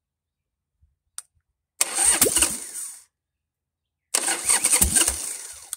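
Harley-Davidson Sportster V-twin being turned over by its electric starter, with the exhaust pipes off: two short bursts of cranking, the second a little longer. The starter now spins the engine because the realigned solenoid contacts are making good contact, where before it only gave a clunk.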